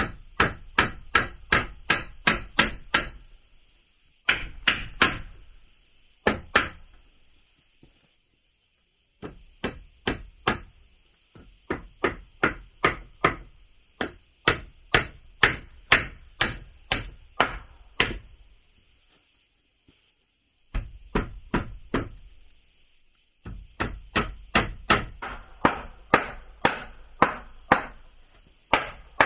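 Runs of sharp, regular strikes, about three a second, typical of chopping or hammering, broken by short pauses of one to three seconds.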